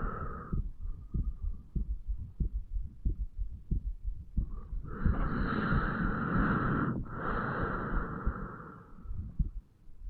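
A man's heartbeat picked up through the chest at the mitral valve area: regular low thuds. About halfway through, a long breath, in and then out, is heard through the chest as a broad hissing rush over the beats.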